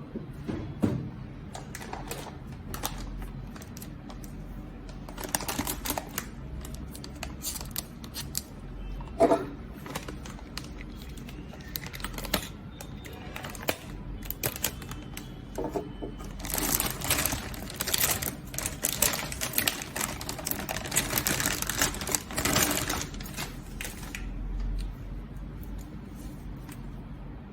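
Graphics card packaging being handled and opened: a run of clicks and knocks, with louder crinkling and rustling of cardboard and plastic about two-thirds of the way through.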